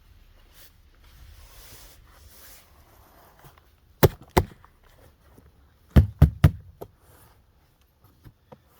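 Sharp knocks while potatoes are picked out of a tipped-out tub of soil: two about four seconds in, then three in quick succession about two seconds later, after some soft rustling of soil.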